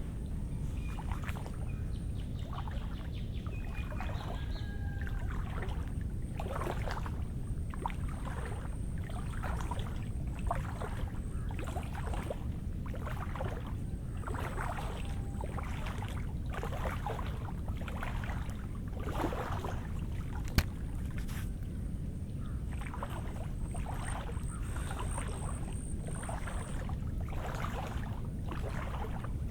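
Footsteps through wet, waterlogged ground, each step a short splashy squelch a little more than once a second. Under them is a steady low rumble, and above them a thin high pulsing tone. One sharp click comes about two-thirds of the way in.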